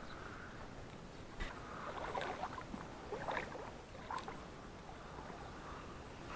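Small river waves lapping at the shore: a few soft, irregular splashes over a faint steady hiss.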